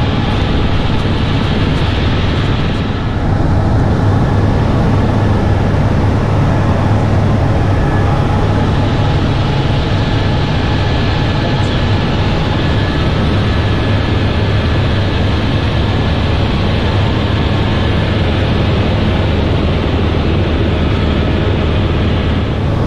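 Helicopter cabin noise in flight: the engine and rotor drone loudly and steadily, with a thin, steady high whine.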